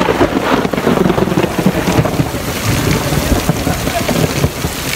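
Heavy storm rain falling on pavement, with strong gusting wind buffeting the microphone in an irregular low rumble.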